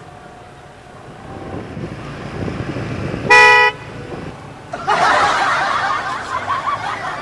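One short, loud car horn blast, about a third of a second long, sounded as a prank. About a second and a half later comes a loud, startled scream that runs on.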